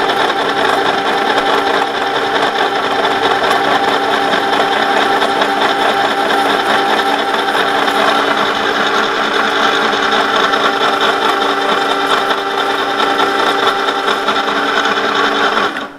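An 18 mm four-flute HSS end mill on a conventional milling machine plunge-cutting into ST 41 steel: a loud, steady, many-toned cutting noise over the spindle's hum. The cutting noise stops suddenly just before the end, leaving the spindle humming on its own.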